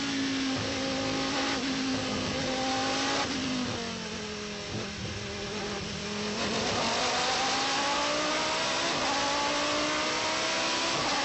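Pescarolo 01's Judd V10 race engine heard onboard. It holds a steady high note for about three seconds, then drops in pitch and quietens as the driver lifts, and from about halfway through it climbs steadily in pitch and gets louder again under acceleration.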